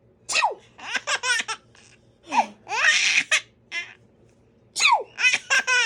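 A baby laughing in three short bouts, each a quick run of high-pitched laugh notes, with brief pauses between.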